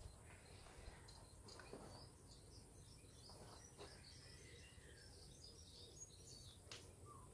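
Near silence: faint outdoor ambience with scattered faint high bird chirps and a single faint click near the end.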